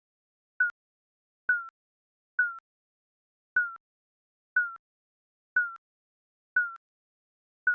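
Digital countdown timer beeping about once a second: short electronic beeps, each a single tone dipping slightly in pitch, eight in all with silence between.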